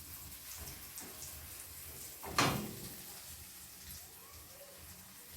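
Egg mixture sizzling faintly in a frying pan as a steady soft hiss, with one short knock about two and a half seconds in.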